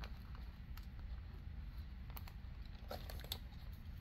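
A few faint, scattered clicks of small plastic pieces being handled: resin diamond painting drills and a plastic drill tray. Underneath is a low, steady rumble.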